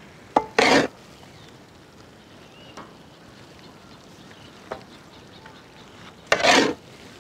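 Two short scraping rustles about six seconds apart, each led by a sharp click: carrot halwa being scooped and dropped onto a banana leaf with a steel ladle.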